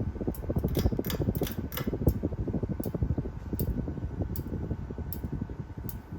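Restored Snoopy ceiling fan running, with the air from its blades making a fluttering rumble and a faint steady motor hum underneath. Light sharp ticks come several close together in the first two seconds, then at even spacing a little under a second apart.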